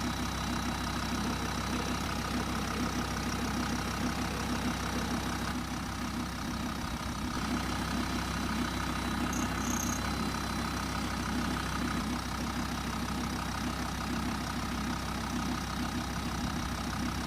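VW T4's 2.5 TDI five-cylinder diesel engine idling steadily.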